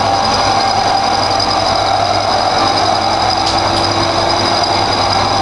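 Benchtop milling machine converted with a CNC stepper-motor kit, its end mill cutting 3/4-inch metal plate: a steady machine noise with a constant high whine.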